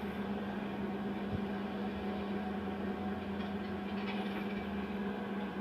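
A steady low machine-like hum with one constant drone tone, unchanging throughout.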